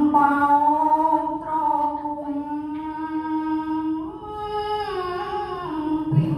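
A boy's voice chanting Khmer verse in a slow sung melody, holding long notes. The pitch steps up about four seconds in and falls back down near the end.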